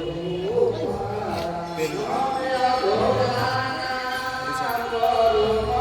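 Voices chanting a devotional song in long held notes that slide between pitches.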